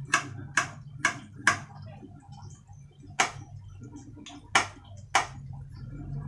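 Kitchen knife cutting on a ceramic plate used in place of a chopping board: seven sharp clicks as the blade strikes the plate. Four come in quick succession in the first second and a half, then three more, more spaced out.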